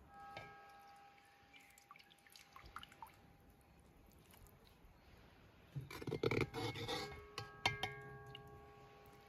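A metal slotted spoon taps a metal cooking cauldron, and the pot rings on with a clear, several-toned ring, once near the start and again about 7.5 s in. About six seconds in there is a louder clatter and wet scraping as the spoon scoops saucy chicken and potatoes out of the cauldron and drops them onto a wooden tray.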